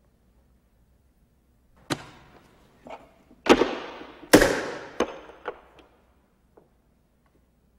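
Chess pieces set down sharply on a wooden board, a series of knocks with ringing tails. The first comes about two seconds in, the two loudest follow about a second apart, and a few lighter ones trail off after.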